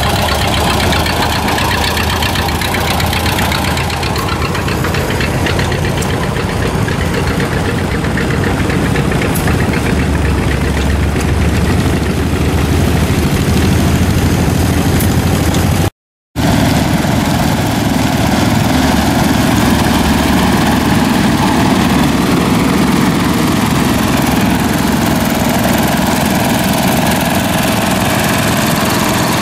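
Engine running steadily. There is a brief silent gap about halfway through.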